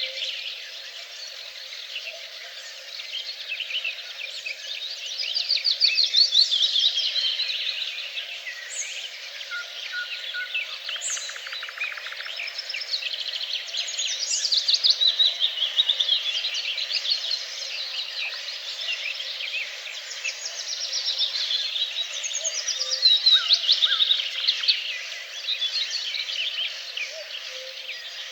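Several songbirds singing at once: overlapping rapid trills and chirps, coming and going in waves.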